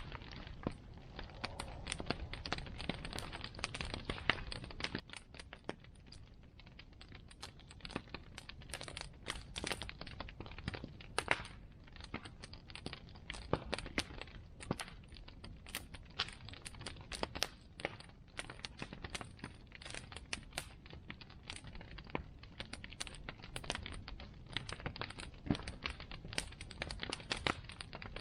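Bonfire crackling: burning wood snapping and popping in many quick, irregular clicks over a low steady rumble of the fire.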